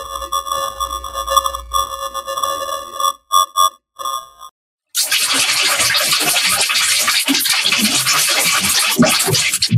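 Heavily effects-processed logo audio. A held electronic tone with many overtones stutters into choppy cuts about three seconds in, then stops briefly. About halfway through, loud harsh static-like noise with crackling starts and runs on.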